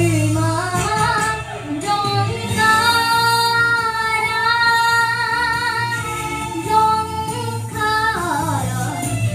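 A young girl singing a Japanese enka song into a microphone, holding long wavering notes through the middle and sliding down in pitch near the end.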